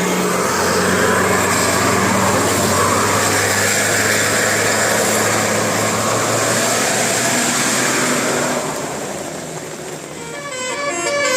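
Heavy vehicle going by with a loud rush of engine and road noise and a steady low hum, fading about nine seconds in. Near the end a multi-tone telolet horn starts up, playing a melody of stepping notes.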